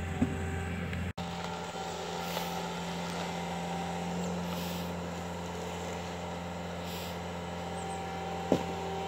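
A vehicle engine idling with a steady hum. There is a sharp click just after the start and another near the end, and the sound drops out for an instant about a second in.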